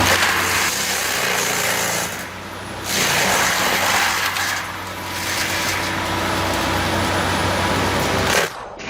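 Heavy wood-processing machine (stump grinder or chipper) with its engine running steadily while it grinds wood. The loud grinding noise eases off twice and comes back, then cuts off suddenly near the end.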